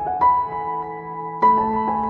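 Soft background piano music, with notes struck about a fifth of a second in and again about a second and a half in, each ringing on and fading.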